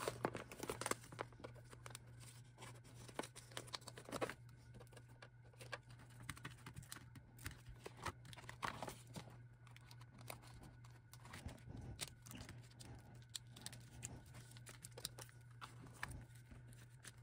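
Faint crinkling and rustling of clear plastic photocard sleeves and binder pocket pages as cards are slid in, with scattered light clicks and taps.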